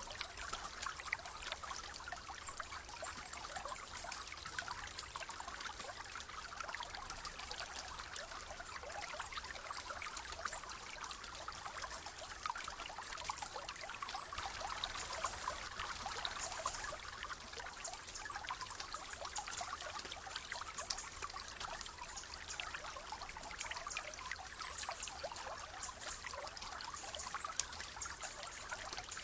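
Shallow stream trickling and burbling over stones: a steady, even flow of water made of many tiny splashes, with no change in pace. A faint high-pitched band with small chirps sits above the water.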